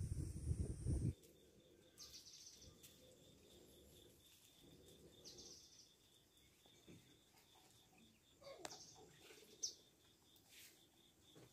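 Faint rural ambience with a few short, high bird chirps scattered through it over a faint steady high tone. A low rumbling noise fills the first second.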